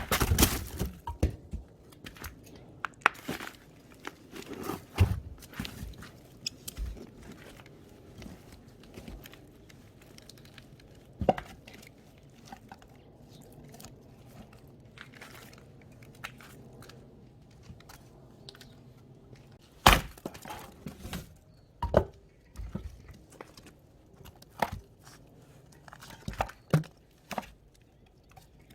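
Wood being chopped and split for firewood: irregular sharp strikes, each followed by cracking and clatter of wood, the loudest at the very start and about twenty seconds in.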